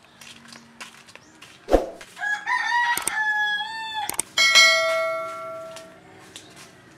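A rooster crows about two seconds in, preceded by a low thump and cut across by sharp mouse-click sound effects. Then a bright bell chime rings out and fades over about a second and a half.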